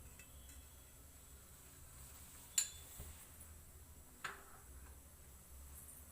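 Two sharp metallic clinks of kitchenware, about a second and a half apart, the first the louder, over a faint low hum.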